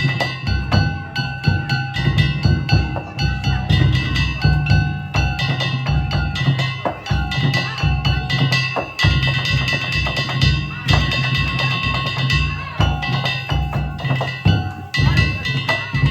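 Danjiri festival music: taiko drums and small hand-struck kane gongs played in a fast, steady rhythm, the gongs ringing on over the drum strikes.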